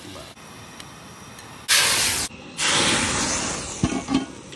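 Tadka sizzling: hot oil in a steel ladle with dried red chillies, curry leaves and cumin, hissing loudly in two bursts, a short one about two seconds in and a longer one just after. Two short knocks come near the end.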